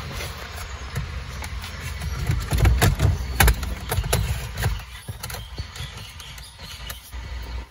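Scattered clicks and rustling as wiring connectors are handled and plugged into the back of a car stereo head unit, over a low rumble.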